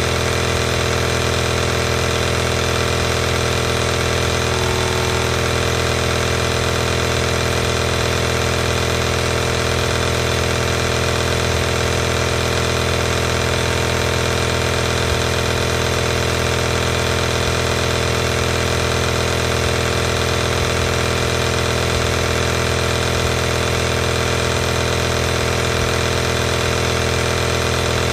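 An electric compressor nebulizer running continuously, its compressor giving a steady, unchanging hum with many even overtones.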